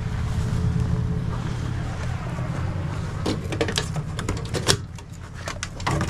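Vehicle engine idling steadily, and from about halfway through a quick run of sharp clicks, knocks and rattles.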